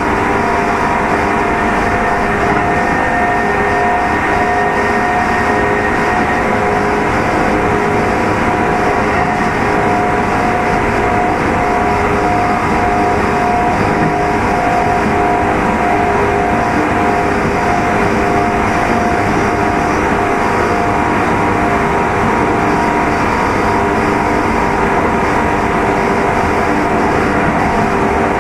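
Running sound inside motor car Mo 2813 of a Kintetsu 2800 series electric train: a steady whine from the traction motors and gears over the rumble of wheels on rail, holding at an even speed.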